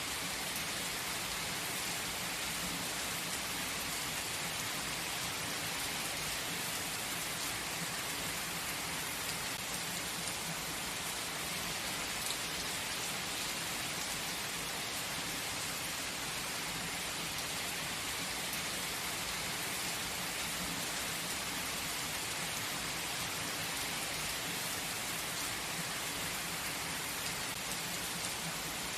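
Steady gentle rain falling, an even hiss of many drops with faint individual drop ticks.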